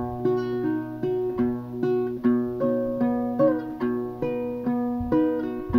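Small acoustic guitar fingerpicked in a slow accompaniment, single notes plucked about two or three a second and left to ring.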